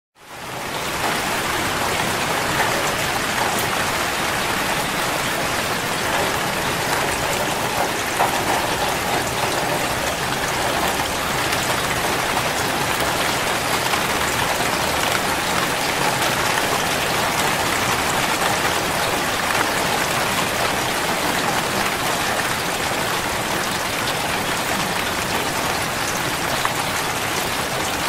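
Steady rain falling: an even hiss with scattered ticks of single drops, fading in over the first half second.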